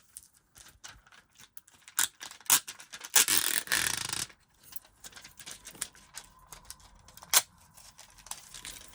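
Crinkling and rustling of a diamond painting canvas's plastic cover sheet being pulled down and handled, loudest for a couple of seconds near the middle, with scattered small clicks and taps and one sharper click later on.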